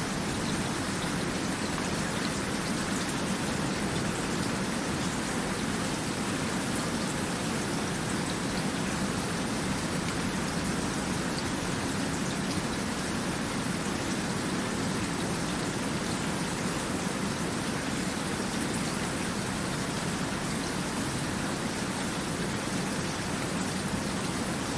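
Steady rain falling, an even hiss of drops with no letup.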